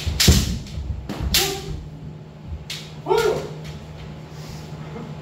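Two loud sharp cracks with a thud, a second apart, of shinai bamboo swords striking kendo armour as the players stamp in on a wooden floor, then a short sharp kiai shout about three seconds in.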